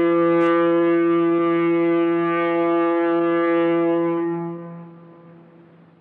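Foghorn sounding one long, steady blast that dies away near the end.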